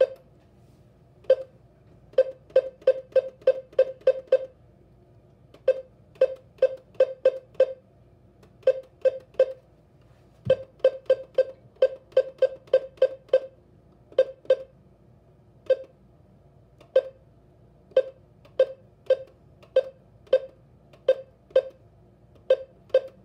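Keypress beeps from an Alert Works EAR-10 weather alert radio as its settings menu is stepped through: short beeps all at one pitch, coming in quick runs of about four a second with pauses between. Near the end they come as single beeps about a second apart.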